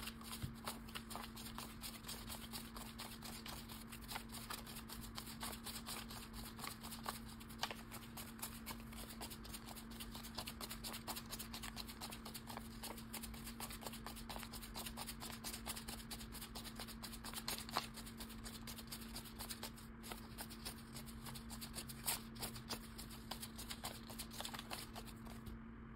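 Paper banknotes being handled and sorted, a dense run of rustling and small flicks of the bills, over a steady low hum.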